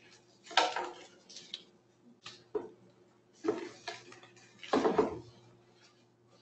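Objects being handled on a table: about six short knocks and rustles, the loudest a little under a second from the end, over a steady low hum.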